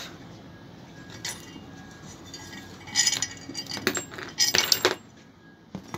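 Metal clinks and scrapes of tools and parts as an alternator is dismantled and its rotor worked out of the housing. They come in short clusters, about a second in, around three seconds in, and most loudly between four and five seconds.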